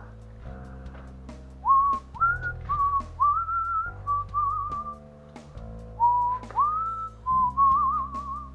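A person whistling a slow, wandering tune, starting a couple of seconds in, with notes that scoop up in pitch and a wavering trill near the end, over background music of sustained chords.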